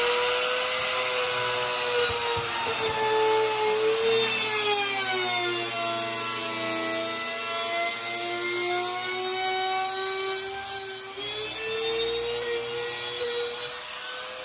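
Makita trim router running and cutting a slot into a wooden board with a bit the owner calls dull. Its steady whine sags in pitch for several seconds in the middle as the cut loads the motor, then climbs back near the end.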